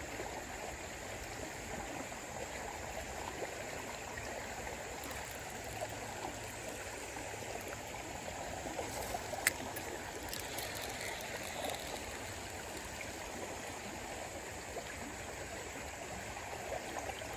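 Shallow, muddy river current rippling and running steadily, with a single sharp click about halfway through.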